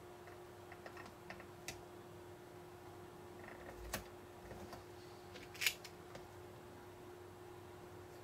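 Scattered light clicks and taps of fingers pressing and smoothing paper stickers onto a plastic toy kitchen set, with one louder, crackly click a little past the middle.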